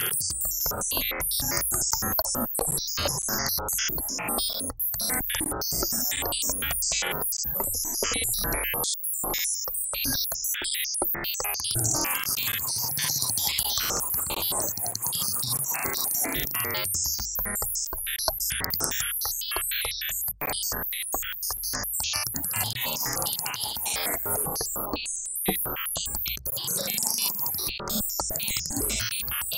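Electronic synthesizer music, choppy and stuttering with many rapid dropouts, over a bright hissing layer.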